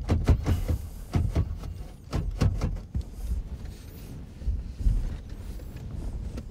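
Hand-handling noises in a car's dashboard as a radio head unit is worked loose: a sharp click, a run of short knocks and clicks of plastic and metal, then a few dull thumps about four to five seconds in.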